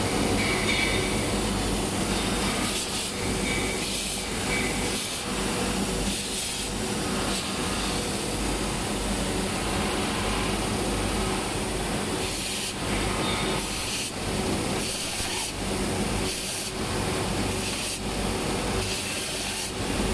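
A buffing machine running steadily with a motor hum and a constant hiss. In the second half, a hatchet blade is pressed against the waxed abrasive in repeated short scraping strokes, roughly one a second, as it is buffed.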